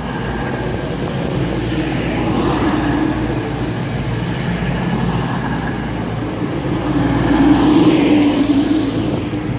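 East Midlands Trains Class 222 Meridian diesel multiple unit pulling out of the station past the platform, its underfloor diesel engines running as the carriages go by. The sound builds to its loudest about three quarters of the way through, as the last car passes, then eases off.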